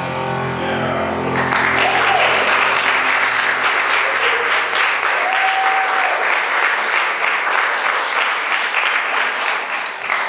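An audience applauding, starting about a second and a half in and dying away near the end, while the last notes of a song fade out over the first few seconds.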